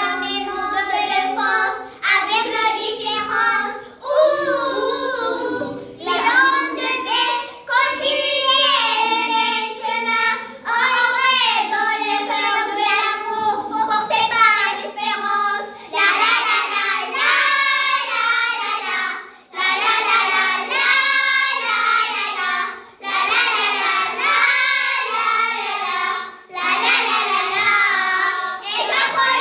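A group of primary-school children singing a song together, phrase after phrase with brief pauses for breath between them.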